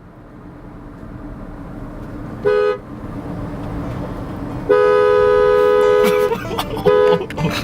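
Two-note car horn honked three times: a short toot, a long blast of about a second and a half, then another short toot.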